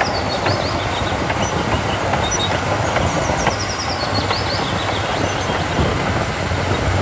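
Large crawler bulldozer working: its diesel engine running under load and its steel tracks clanking and grinding as the blade pushes a pile of dirt, a steady dense rumble throughout.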